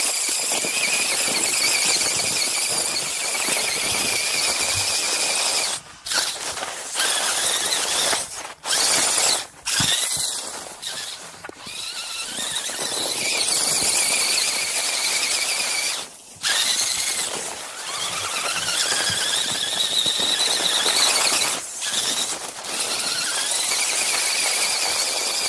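Brushed electric motors and gear drivetrains of 1/10-scale RC rock crawlers (an Axial AX10 and an Axial Wraith) whining under load in snow. A high-pitched whine rises and falls in pitch with the throttle over a steady hiss, and cuts out briefly several times.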